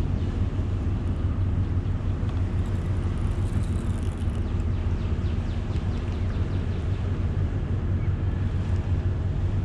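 A motor running with a steady low hum, even and unchanging throughout.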